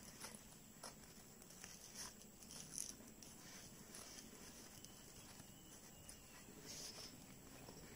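Near silence, with faint, irregular soft rustles and ticks of yarn being drawn through stitches by a metal crochet hook.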